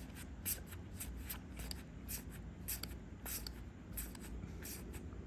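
Trading cards sliding against one another as they are flipped through one at a time, a string of soft swishes roughly twice a second.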